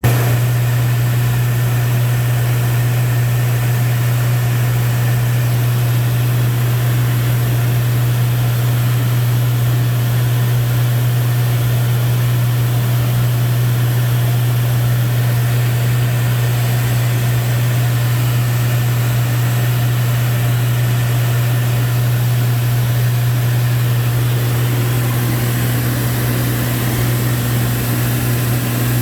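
Lancair 4P's engine and propeller drone heard from inside the cockpit in flight: a loud, steady low hum over a constant rush of air noise. A second, higher steady tone joins about 25 seconds in.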